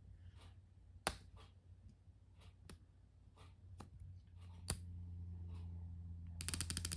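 Faint handling noises from a plastic Miniverse capsule ball and its wrapping being picked at and peeled by fingers: scattered small clicks and crinkles, a sharper click about a second in, and a quick run of rapid clicks near the end.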